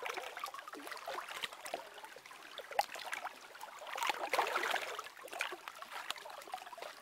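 Moving water with many small, irregular splashes, louder for a stretch about four seconds in.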